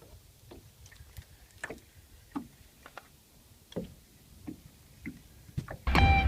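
Scattered small clicks and water plops around a small fishing boat, quiet and irregular. Near the end, guitar music comes in loudly.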